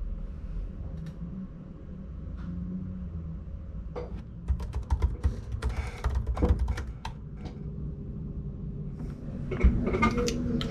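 Typing on a laptop keyboard: bursts of quick key clicks, mostly in the middle and again near the end, over a low steady hum.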